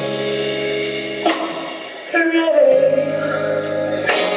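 A woman singing long held notes, backed by a live band on electric guitar, bass guitar and drums.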